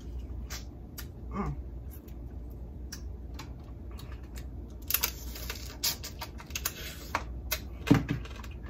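Crawfish shell cracking and crunching in the mouth while a crawfish head is sucked, heard as scattered sharp clicks and crackles, with a longer spell of crackling about five seconds in.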